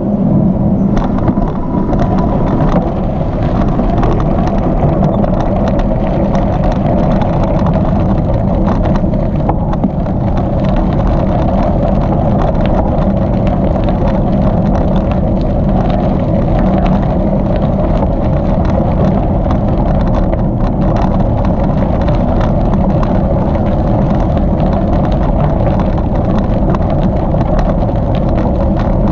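Steady rumble of bicycle tyres and wind buffeting on the camera microphone while riding, with many small clicks and rattles.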